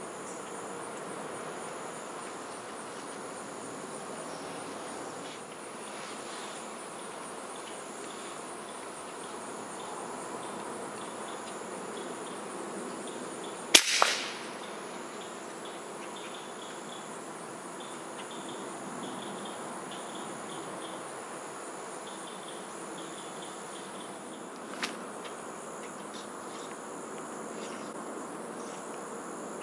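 A .30 air rifle fires once about fourteen seconds in: a sharp crack with a second crack close behind. A steady chorus of insects runs underneath, and a smaller click follows about ten seconds later.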